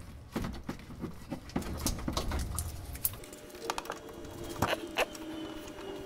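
Scattered light clicks and rustles of hands handling a trailer wiring harness and zip ties against a truck's frame.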